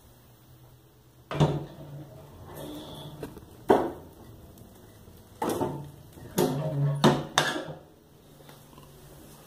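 A split log being loaded into a wood-burning stove: the stove door is opened, and the log is set onto the fire with a series of wooden knocks and clunks. The door is then closed, and the loudest knocks come near the end.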